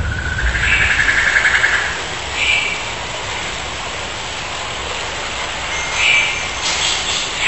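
Steady rushing of whitewater, with a few short high-pitched tones over it: a longer one in the first two seconds, then brief ones midway and near the end.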